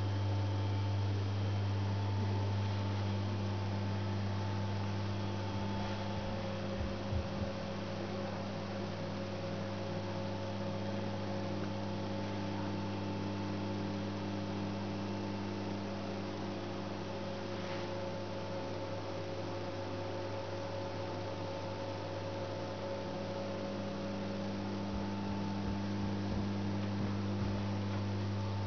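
Steady electrical mains hum, a low drone with fainter higher tones above it, with a few soft bumps about seven seconds in and again near the end.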